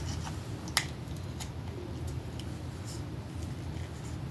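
A few light clicks and rustles of small items being handled, the sharpest just under a second in, over a steady low room hum.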